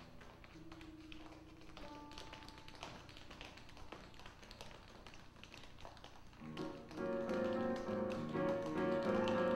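Tap shoes clicking on a stage floor against sparse, quiet jazz piano notes; about seven seconds in, the live piano, upright bass and conga trio comes in fuller and louder.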